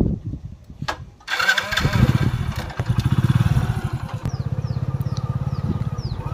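Hero Splendor motorcycle's single-cylinder four-stroke engine starting suddenly about a second in, then running with an even putter as the bike pulls away.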